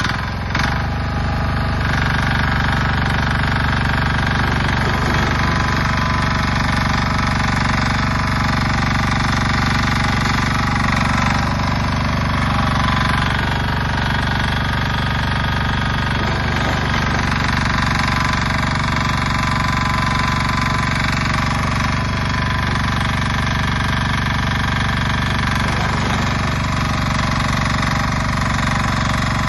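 KOOP diesel engine of a tracked mini dumper running steadily while it drives the hydraulic self-loading shovel, with a few brief scraping, loading noises on top.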